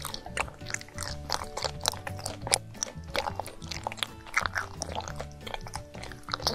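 Background music, with close-miked chewing of a soft chocolate snack over it: many short wet clicks and smacks of the mouth.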